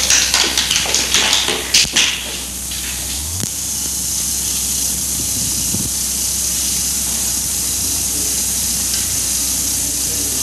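Steady hiss and low hum of an early sound-film recording, with a spell of crackles and pops in the first two seconds. The hum changes abruptly about three seconds in.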